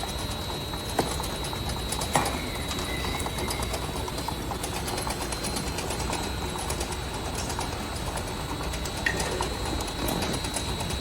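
Conveyor line of a vacuum leak tester running with fast, steady ticking and a steady high whine, with a few louder knocks as glass jars without vacuum pass along it.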